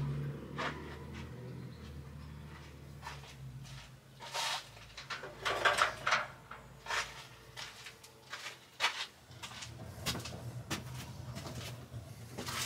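Scattered knocks, scrapes and rustles of handling as a 295-watt solar panel is tilted to a new angle toward the sun, with a low hum that fades out about four seconds in.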